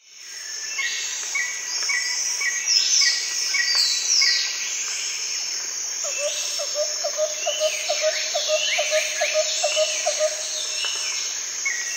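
Outdoor birdsong chorus over a steady high insect buzz: many short whistled and falling notes from several birds. From about halfway through, a lower note repeats about four times a second for several seconds.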